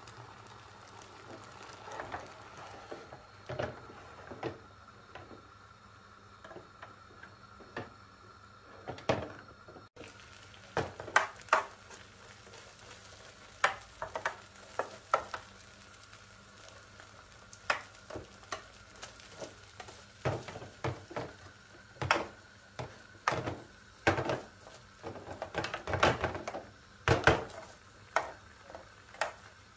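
Metal spatula scraping and knocking across a metal baking tray, spreading kazandibi milk pudding as it boils and sizzles on the hob. The strokes come irregularly and grow more frequent about a third of the way in.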